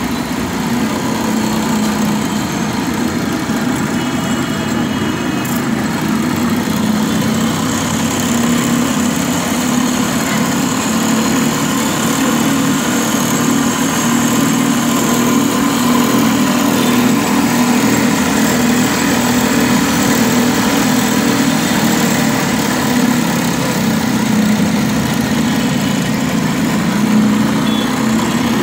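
Cotton candy machine running steadily, its spinning head throwing out pink sugar floss as it is wound up; a constant mechanical drone with a low steady hum.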